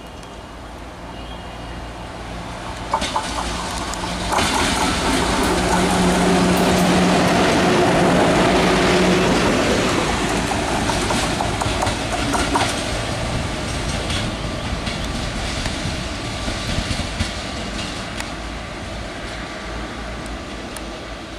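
WAG-7 electric freight locomotive passing close at speed: the rumble of wheels on rail builds to a peak about four to ten seconds in, with a steady hum and sharp clacks of wheels over rail joints, then slowly fades.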